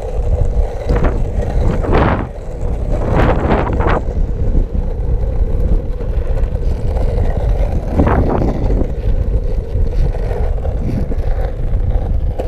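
Skateboard wheels rolling over asphalt with a steady low rumble and hum, while wind buffets the microphone in several brief gusts.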